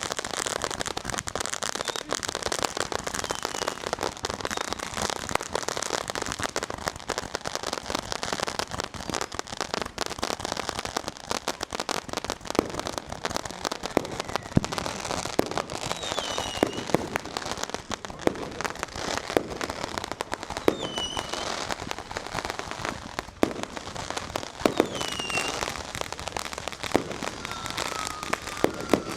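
Dense, continuous crackling of many fireworks and firecrackers going off at once, with sharp pops throughout. A few short whistles fall in pitch, one near the end.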